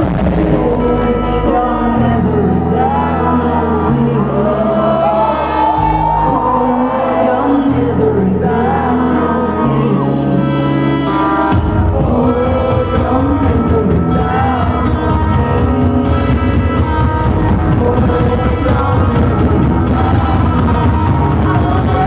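Live rock band playing in an arena, with a sung melody over held, stepping bass notes; about halfway through the accompaniment turns fuller and denser as the whole band comes in. Crowd noise under the music.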